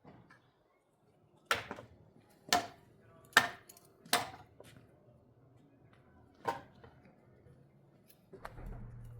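Five sharp knocks, each with a short ring: four about a second apart, then a fifth about two seconds later, with a brief low rumble near the end.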